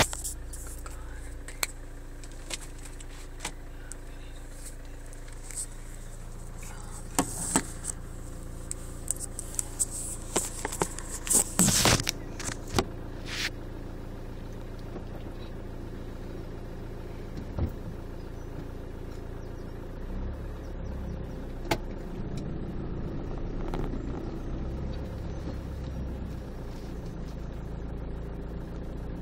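Car engine running with a steady low hum, heard from inside the cabin. In the first half come sharp clicks and knocks of the phone being handled and set in place, most of them bunched in the middle; the low rumble swells a little later on.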